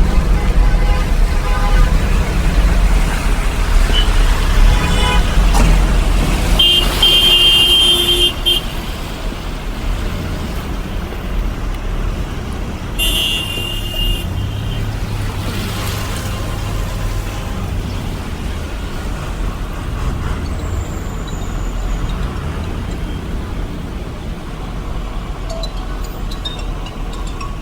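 Street traffic with a steady low engine rumble, and car horns honking twice: a long blast about seven seconds in and a shorter one about thirteen seconds in.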